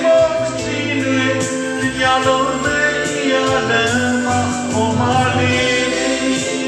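A man singing a Burmese song into a handheld microphone over instrumental backing music, karaoke-style.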